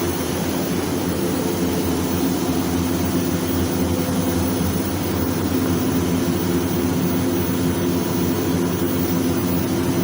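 Steady machine hum: a constant low drone with several held tones under an even hiss, unchanging throughout.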